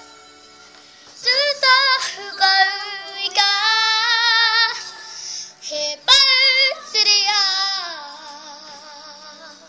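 A girl singing a song in te reo Māori, unaccompanied. She holds long notes with vibrato, breaks off briefly about halfway through, and her voice trails away near the end.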